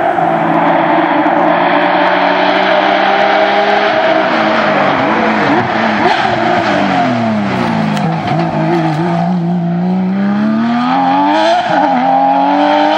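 Porsche 911 GT3 rally car's flat-six engine at high revs, then the revs fall away over several seconds with quick jumps in pitch as it shifts down. The engine stays low for a couple of seconds, then climbs again, with a short dip at a gearshift near the end.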